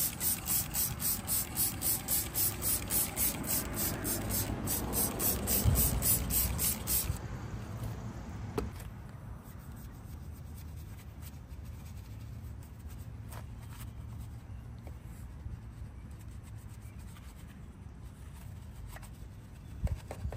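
Trigger spray bottle squirting wheel cleaner onto an alloy wheel in quick, even pumps, about three a second; after about seven seconds it gives way to a quieter, steady rubbing of a wheel brush scrubbing the foamy spokes.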